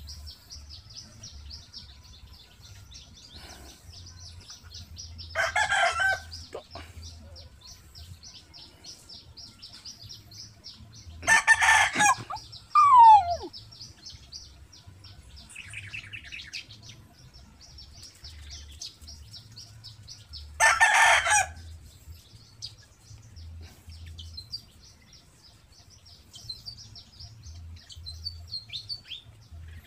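A rooster crowing three times, each crow about a second long, with a short loud falling squeal right after the second crow. Underneath runs a steady faint high buzz.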